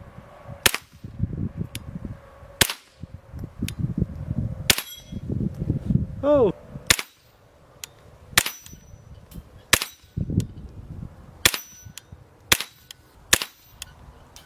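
.22 rimfire gunshots: a string of about nine sharp cracks, roughly one every one to two seconds, some faster.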